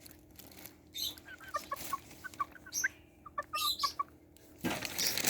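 Serama hen giving a quick run of short, high clucking chirps, followed near the end by a rustling noise.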